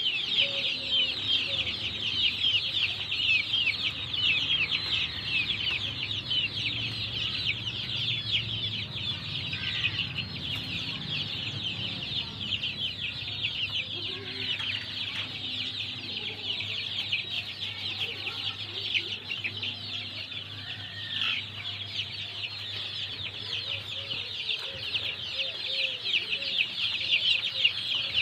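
Many young chicks peeping together without pause, countless short high-pitched peeps overlapping into a continuous chorus.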